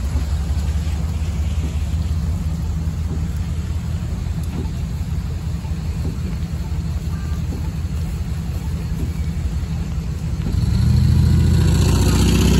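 A Nova Bus hybrid-electric city bus running at a stop: a steady low engine rumble. About ten seconds in it grows louder, with a fuller engine note and a wider rush of noise.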